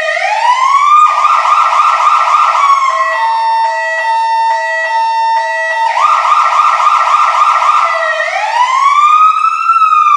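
Fire truck siren cycling through its tones. It sweeps up in a wail, changes about a second in to a fast warbling yelp, then to rapidly alternating two-tone blasts, back to the yelp about six seconds in, and rises into a long wail again near the end.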